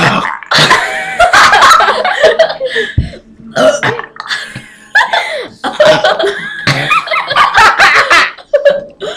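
Several people burping loudly, one burp after another, with laughter in between.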